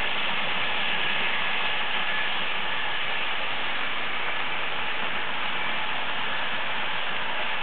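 Märklin H0 model trains running on the layout: a steady whirring, rolling hiss of wheels and motors on the three-rail track, with a faint steady whine in it.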